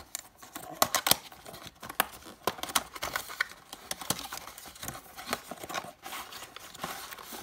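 A cardboard box being opened by hand, its tuck flap worked loose and the inner card slid out. Card scrapes and rustles, with many sharp clicks and taps throughout.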